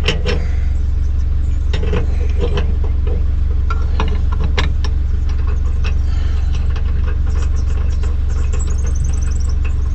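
A 4x4's engine idling with a steady deep hum, while a steel shackle and snatch block clink now and then as they are fitted to the tow hitch.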